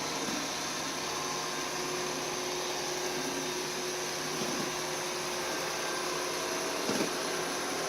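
bObsweep PetHair robotic vacuum running steadily as it sweeps pet hair off the floor: an even motor hum with a steady whine. There is one brief knock near the end.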